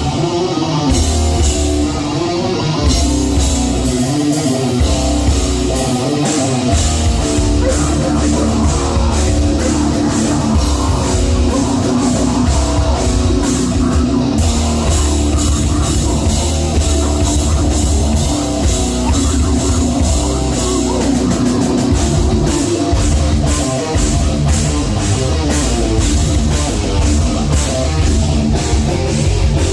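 A heavy metal band playing live and loud: distorted electric guitars, bass and a drum kit, with the low end stopping for short breaks a few times.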